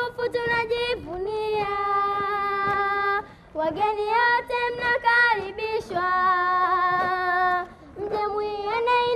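A group of children singing a song together in unison, without accompaniment, in sung phrases of about four seconds with short breaths between them.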